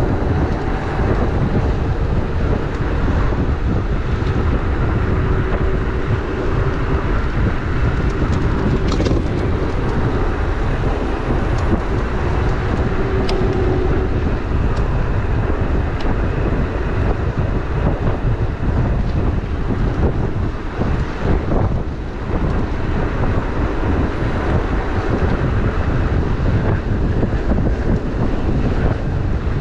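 Steady wind rushing over a body-worn action camera's microphone on a moving electric motorbike, over a low rumble of tyres on pavement and a faint steady hum.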